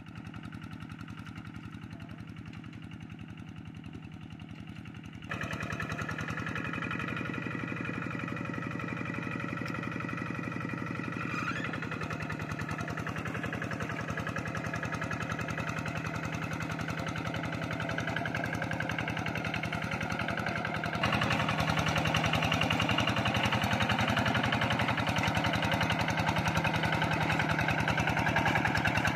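Single-cylinder diesel engine of a two-wheel hand tractor running steadily under load as it plows wet rice-paddy mud. It gets louder in two steps, about five seconds in and again about two-thirds of the way through.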